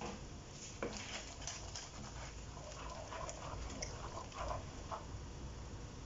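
Thick chili sauce bubbling in a wok, with short irregular pops, as a wooden spatula stirs through it. A single sharp knock about a second in.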